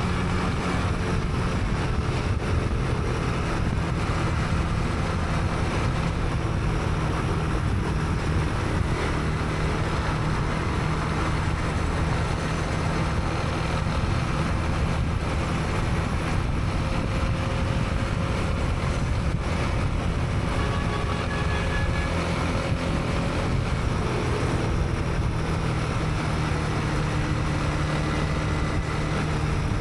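Honda CB300R's single-cylinder engine running at a steady pace while riding, heard from a helmet camera, over a constant wash of road and traffic noise.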